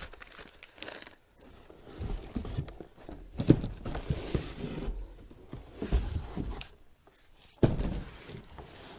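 A cardboard shipping box being opened and unpacked by hand: flaps and cardboard rustling and scraping, with a few knocks as things are set down on a wooden workbench. The loudest knock comes about three and a half seconds in, another near the end.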